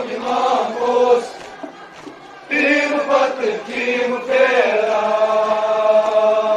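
A man chanting a nauha, a Muharram lament, into a microphone in long drawn-out lines. There is a short pause about two seconds in, then a long held note from a little past four seconds in.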